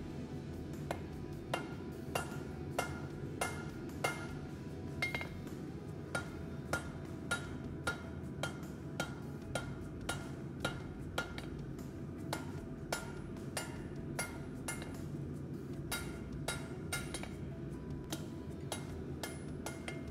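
Blacksmith's hand hammer striking red-hot steel bar stock on an anvil, a steady rhythm of about two blows a second starting about a second in, each blow ringing briefly. A steady low rumble runs underneath.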